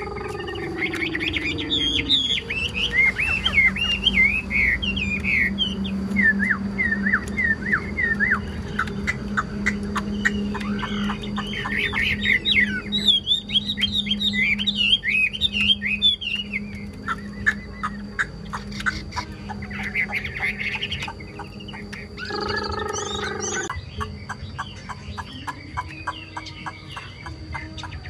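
A Chinese hwamei singing a long, loud song of rapid, varied whistled phrases that slide up and down, turning into a faster rattling run of notes later on.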